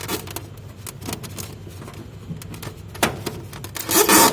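Handling noise from working parts inside an air-conditioner unit: scattered rustling and clicks, a sharp click about three seconds in, and a louder scraping rustle near the end.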